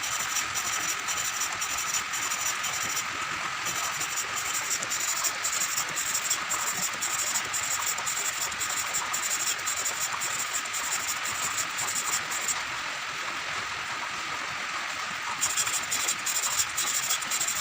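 Valve of a Sogo 13 hp GL390 engine being lapped into its seat with grinding compound: a continuous gritty rasping hiss that flickers rapidly with the rubbing, easing for a few seconds in the second half. The lapping is being repeated because the seat is not yet seating evenly.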